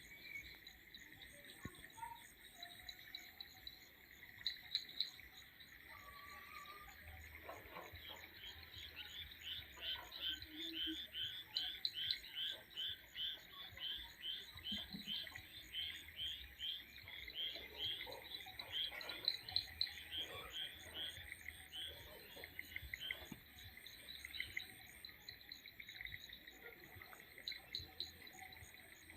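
Evening chorus of crickets and other calling insects: a steady high trill throughout, with a louder chirping call repeating about twice a second through the middle.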